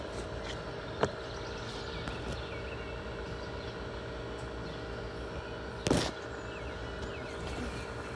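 Handling noise from a phone camera held against fabric and skin: a light bump about a second in and a louder knock with rubbing about six seconds in, over a steady low background hum.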